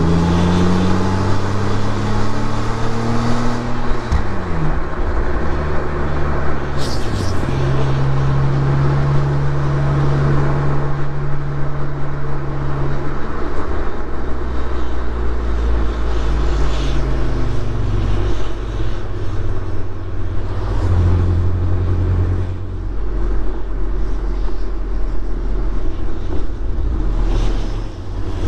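BMW Z4 (E85) roadster under way: the engine climbs through the revs for the first few seconds, then the revs drop sharply about four seconds in. After that it runs on at a fairly steady pace over continuous road noise, with the engine note shifting a few times.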